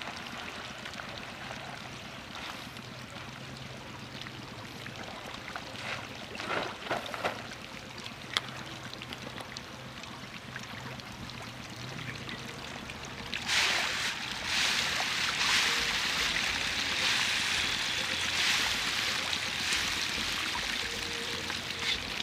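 Water splashing and fizzing as a dense shoal of baby magur (walking catfish) churns the pond surface for scattered feed. It is fainter with a few clicks at first, then much louder from a little past halfway.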